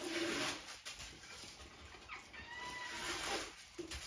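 Crinkly wrapping rustling as it is pulled off a handbag, in bursts near the start and again about three seconds in. A short high-pitched call sounds briefly a little past the middle.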